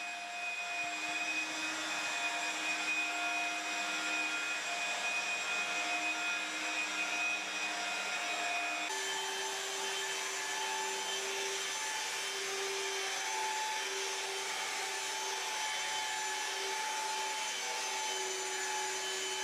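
Rotary polishing machine running steadily with its foam pad on car paint: a steady motor whine over a rubbing hiss. The tone changes abruptly about nine seconds in.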